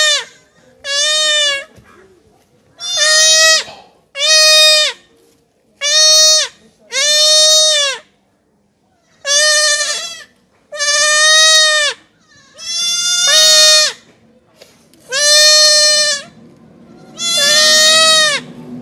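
A young goat kid bleating over and over, about eleven calls of roughly a second each with short gaps between, each arching up and then down in pitch. These are the distress calls of a kid held down on its back for castration.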